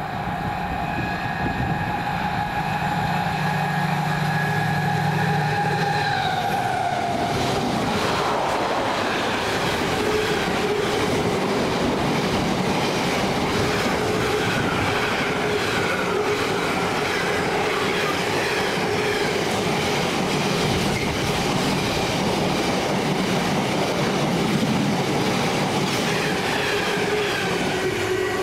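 Container freight train passing through at speed. First there is a steady pitched tone from the locomotive, which drops in pitch as it passes about six seconds in. After that comes the long, steady rolling noise of container wagons running over the rails.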